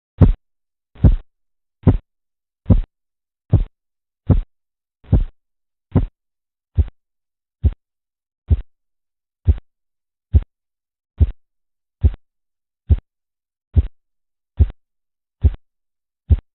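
Korotkoff sounds heard through a stethoscope over an artery below an inflated blood pressure cuff: a regular tap with each pulse beat, about seventy a minute, some twenty beats in all.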